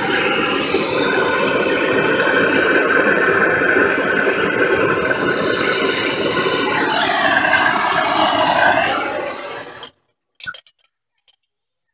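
Handheld gas torch running steadily on a crucible of molten silver during a pour into a wood mold. The sound changes about seven seconds in, then the torch cuts off suddenly near the end, followed by a few light clicks.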